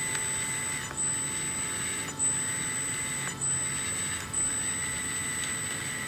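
Electric drive of a 1/14-scale RC hydraulic excavator whining steadily as its tracks run on a stand, the whine breaking and surging about four times as the transmitter sticks are worked.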